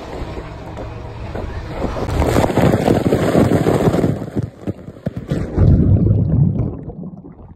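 Water and air rushing over the microphone of a camera riding down a steep water slide, growing louder toward the bottom, then the plunge into the pool: a heavy churning of water and underwater bubbling that drops away suddenly near the end.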